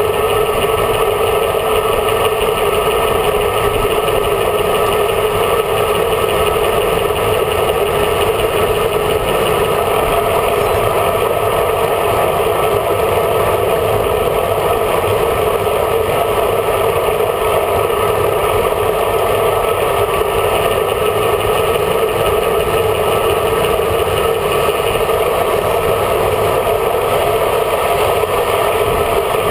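Steady rush of wind and road noise on a bike-mounted camera's microphone while riding at speed in a group of road cyclists.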